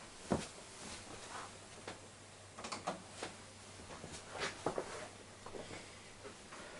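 A few scattered short clicks and light knocks, irregularly spaced, over a faint steady low hum in a small room.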